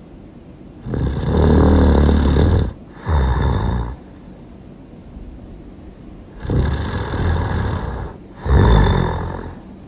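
A person snoring loudly, two snores in all. Each snore is a long rasping part of nearly two seconds followed, after a brief break, by a shorter part.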